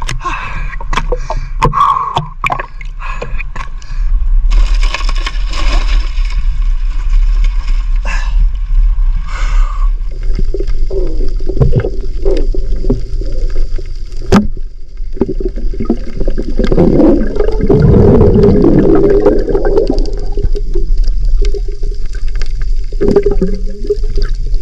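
Sea water gurgling and sloshing around a camera held at and under the surface, over a steady low rumble, with scattered knocks. The water noise swells loudest a little past the middle.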